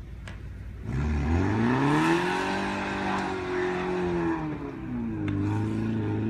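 Car engine revving hard, rising about a second in, held high for about three seconds, dropping around five seconds in and revving up again: a car struggling for grip on an icy, snow-covered street.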